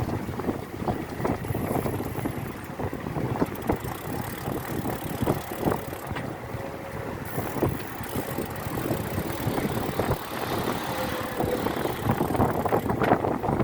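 Riding noise from a mountain bike on the road: tyres and rattling parts giving many small irregular knocks, over wind buffeting the microphone.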